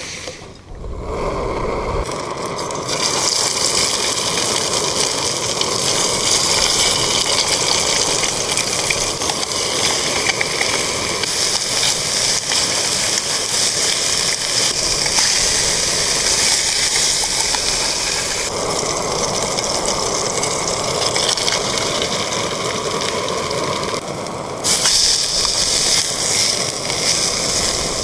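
Portable gas-canister camping stove burning with a steady, loud hiss. It comes up over the first couple of seconds and holds steady, with a brief dip near the end.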